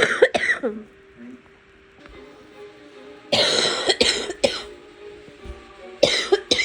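A person coughing in three fits: a couple of harsh coughs at the start, a longer burst of several coughs about three seconds in, and two more near the end.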